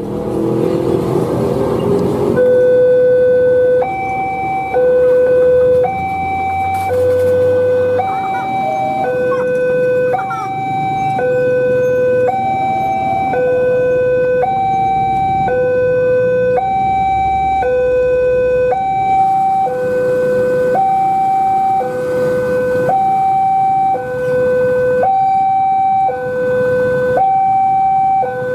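Railway level-crossing warning alarm sounding its repeating two-tone signal: a lower and a higher tone of about a second each, alternating steadily. It warns that the crossing is closing for an approaching train.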